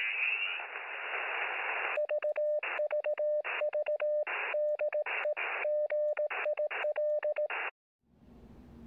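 Shortwave radio band hiss, then a Morse code tone keyed on and off by a QRP CW transceiver, with the band hiss filling the gaps between the dots and dashes. It cuts off abruptly near the end, leaving a faint background.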